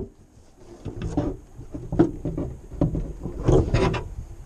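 Top cowling of a Yamaha VMAX HPDI 150 two-stroke outboard being worked loose and lifted off: a series of clunks, a sharp click about two seconds in, and rubbing, loudest near the end.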